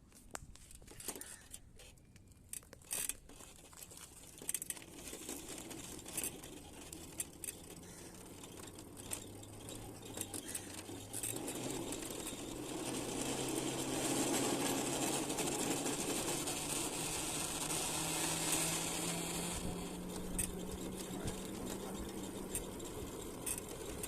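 LEM electric scooter's motor droning with a grinding edge as the scooter pulls away and gathers speed, a low hum that climbs in pitch, with road and wind noise building up. The drone is a fault that draining the controller has not cured.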